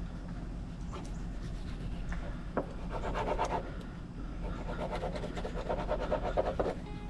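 Knife rasping as it is pushed between tough fish skin and fillet on a cutting board, in two stretches of quick scraping strokes, the first a little over a second long and the second about two seconds.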